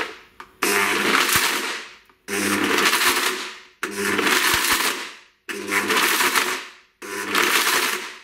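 Blendtec blender pulsed about five times, each burst of roughly a second and a half starting sharply and winding down, chopping frozen mixed fruit with icing sugar.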